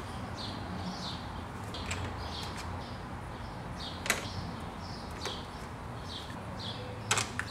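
Small wrench clicking against the car battery's terminal clamps as the cables are tightened back on, a few sharp metallic clicks, the loudest about four seconds in and a quick pair near the end. A bird chirps repeatedly in the background, about twice a second.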